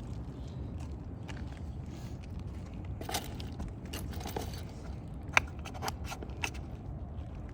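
Old asphalt 3-tab shingles being handled and pried at on a roof: scattered scrapes and crackles, with one sharp click about five seconds in.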